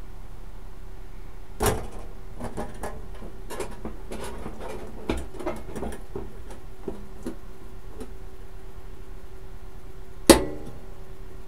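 Tools and sheet-metal parts being handled at a workbench: a sharp knock about a second and a half in and a louder one near the end, with lighter clicks and taps between them, over a steady hum.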